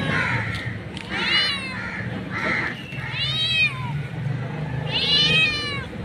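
A domestic cat meowing three times, about two seconds apart. Each call is a long meow that rises and then falls in pitch.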